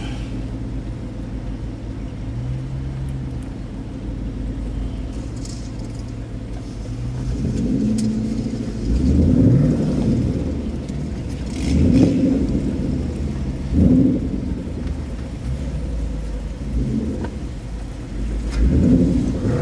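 Ford Mustang engines idling with a steady low rumble, then revved in short blips about four times in the second half, each rising and falling in pitch.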